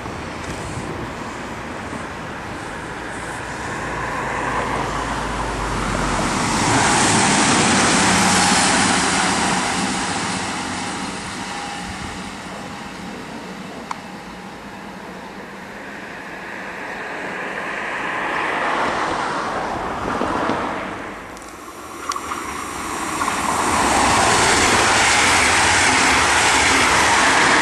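Trains passing on an electrified line: a Stadler FLIRT electric multiple unit approaches and runs by, its wheel and rail noise swelling and fading more than once. Near the end, after a sudden break, a second train rushes by close to the microphone.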